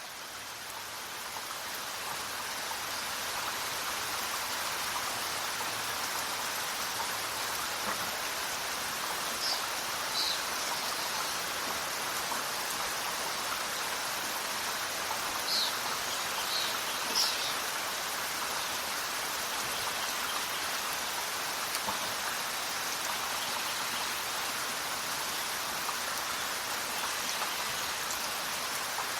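Steady rain falling in a jungle, fading in over the first few seconds. A few short high bird chirps come through the rain in the middle stretch.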